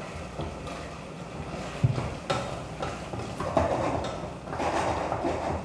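Cubed sweet potato tipped into a stainless steel stew pot, then a wooden spoon stirring the stew with a rough scraping noise. There are sharp knocks against the pot about two, two and a half, and three and a half seconds in.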